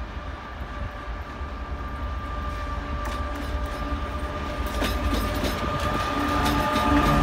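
2TE116 diesel locomotive approaching, its diesel engines droning with a steady high whine and growing steadily louder. Wheel clicks over the rail joints come in about halfway through.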